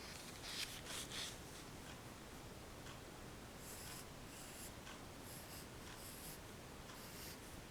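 Pencil sketching on paper: scratchy strokes in quick groups, the loudest in the first second or so, with further runs of strokes in the second half.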